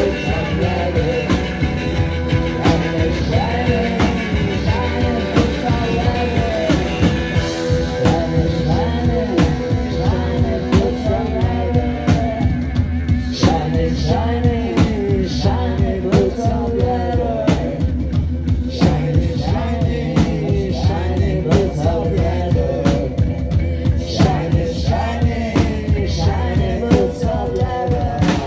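Garage-punk rock band playing live, with drums keeping a steady beat under bass and electric guitars, and a voice singing over them.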